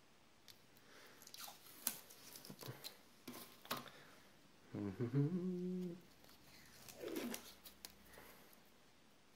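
Protective film and tape being peeled off cut razor-scale blanks: scattered crackles, snaps and short tearing rips. It is broken by a brief hum about halfway through, which is the loudest sound.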